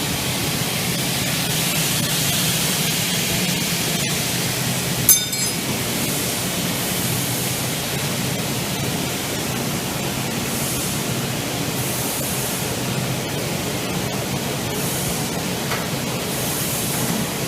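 Automatic double-head aluminium profile saw running with a steady noise, its motors spinning between cuts, with one brief click about five seconds in.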